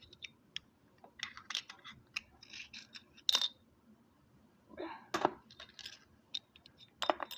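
Scattered clicks, taps and rattles of small packaged toys being handled and picked through, with a sharper clink about three seconds in and another near the end.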